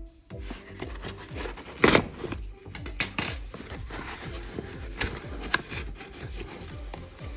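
Background electronic music with a steady beat, over sharp clicks and knocks of packaging being handled during an unboxing, the loudest about two seconds in.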